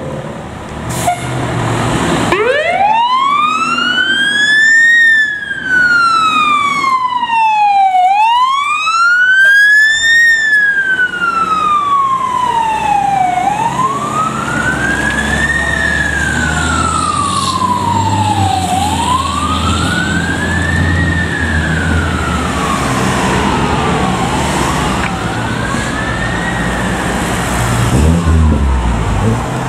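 Fire engine siren on a slow wail. It winds up from low pitch in the first few seconds, then rises and falls about every five seconds. The truck's engine rumbles underneath as it pulls away.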